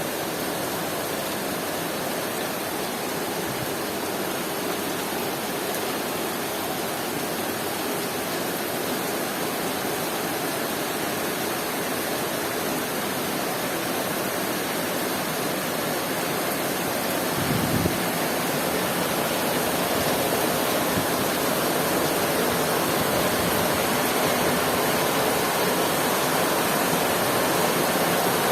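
Heavy rain falling steadily around a house balcony, a dense even hiss that grows slightly louder in the second half. There is one brief low thump about two-thirds of the way through.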